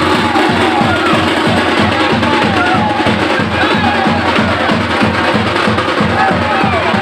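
Loud festival drumming with a fast, even beat, with voices over it.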